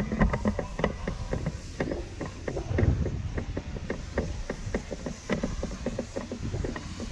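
Footsteps of several people walking along a marina dock, irregular clicks and taps a few times a second, over a steady low rumble.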